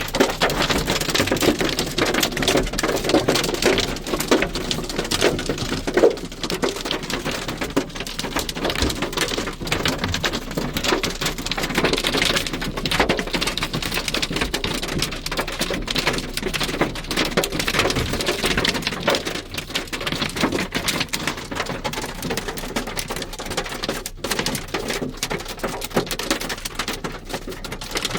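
Hail and rain pelting the roof and glass of a car, heard from inside the car: a dense, continuous clatter of small impacts.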